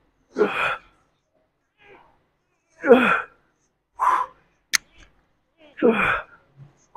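A man grunting and exhaling hard with each rep of a standing barbell overhead press: four short strained grunts, each falling in pitch. A single sharp click sounds just before the fifth second.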